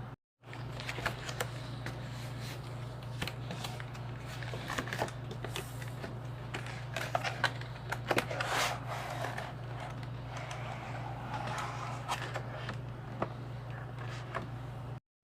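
Packaging of a Pokémon card poster-collection box being opened and handled: irregular crackling, rustling and scraping of plastic and cardboard, over a steady low hum.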